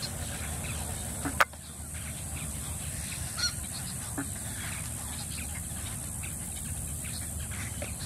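A few short honking calls from wading birds over a steady low rumble. A single sharp click about a second and a half in is the loudest sound.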